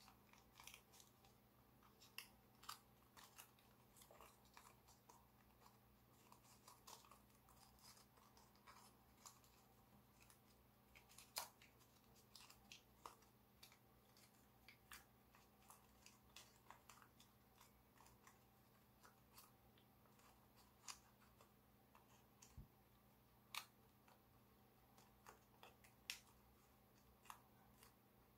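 Faint crinkling and crackling of gold foil origami paper being pinched and creased by hand: an irregular scatter of sharp little ticks over a low steady hum.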